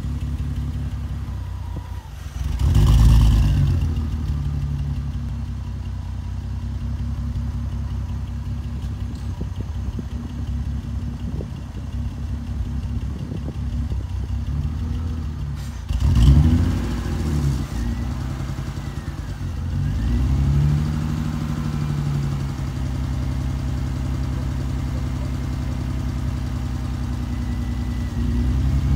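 BMW E46 320i straight-six running through a straight-piped exhaust. It idles steadily and is blipped a few times: a sharp blip about three seconds in, a couple of quick blips about halfway through, another a few seconds later, and a rise in revs near the end.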